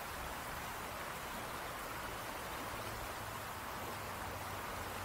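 River water flowing, a steady even rush.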